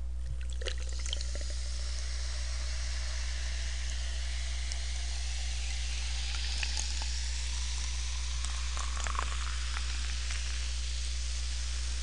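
Coca-Cola poured from a can into a tumbler: a steady pouring stream with the soda fizzing, and scattered small crackles of bubbles throughout.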